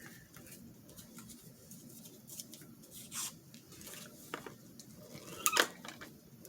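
Paper pieces being handled and placed by hand: light, scattered rustles and small taps, with a louder rustle about five and a half seconds in.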